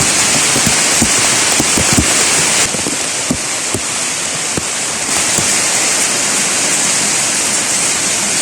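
Heavy rain pouring down: a steady hiss with many separate drops splashing close by. It eases slightly about a third of the way in.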